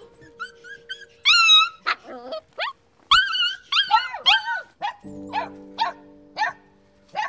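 A puppy yapping at its own reflection in a mirror: a run of short, high-pitched yips, a few of them drawn out, coming about twice a second in the second half. Soft background music with held notes plays underneath.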